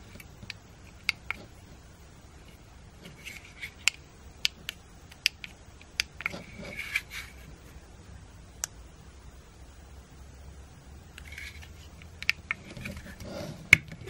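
Sharp plastic clicks of remote-control buttons being pressed on a cigarette-lighter universal remote and a garage-door remote, about a dozen scattered irregularly, with light rustling of the remotes being handled in the middle and near the end.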